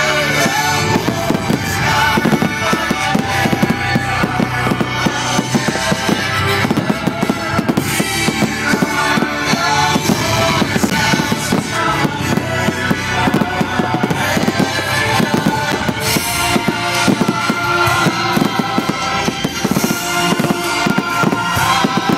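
Aerial fireworks shells fired from mortars, bursting in rapid, near-continuous succession in a finale barrage, with loud music playing alongside.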